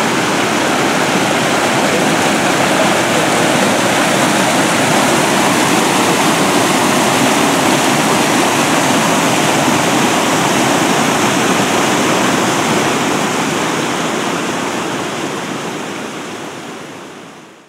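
Rain-swollen creek water rushing and cascading through the Seven Sacred Pools' rock basins, a steady loud rush that fades out over the last few seconds.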